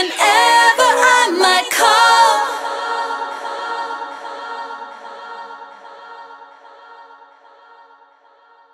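End of a pop song: with the beat gone, layered vocals sing unaccompanied for about two seconds, then a final held chord fades out slowly.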